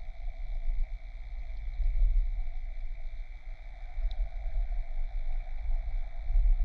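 Muffled underwater ambience picked up by a submerged camera: a low, uneven rumble of water moving around the housing with a steady hum over it, and one faint tick about four seconds in.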